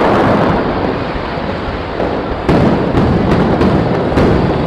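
Aerial fireworks display bursting: a steady rumble of booms and crackle, with a sharper bang about two and a half seconds in and a few more after it.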